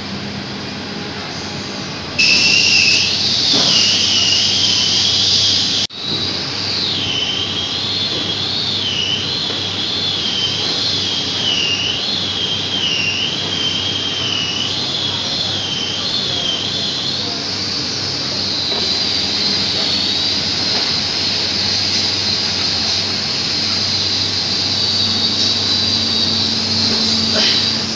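A machine's loud, high whine, wavering up and down in pitch over a steady mechanical drone; it starts abruptly about two seconds in, with a brief break just before six seconds.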